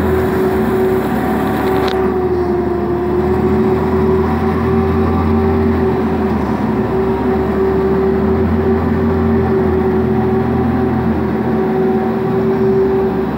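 Zamboni 552 electric ice resurfacer running across the ice: a steady whine over a low hum, with the pitch dipping slightly a few seconds in. A high hiss cuts off about two seconds in.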